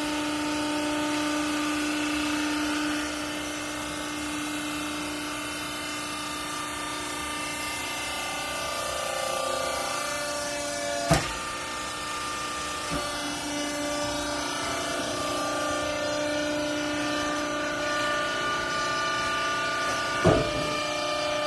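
Hydraulic baler's power unit running with a steady whine, its pitch shifting a little partway through, with two sharp knocks, one about halfway and one near the end.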